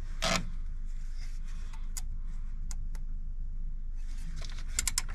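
Metal hand tools clicking and scraping on the bolt and fitting of an air-conditioning line at the compressor as it is tightened by hand: a short scraping rustle just after the start, a few single sharp clicks in the middle, and a quick run of about four clicks near the end, over a faint low hum.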